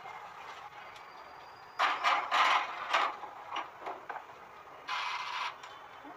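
Morphy Richards countertop oven toaster grill being loaded and set: a burst of metal clatter and scraping about two seconds in as the cake tin goes onto the rack and the door is shut, then a few clicks and a short rasp as the dials are turned.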